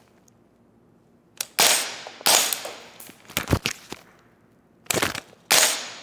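Rifle firing about six sharp shots at an irregular pace, starting about a second and a half in, each with a short echo.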